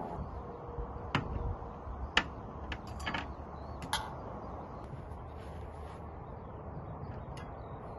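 Dishes and cookware being set down and shifted on a glass tabletop: a handful of short, sharp clinks and knocks, grouped around the middle, with one more near the end.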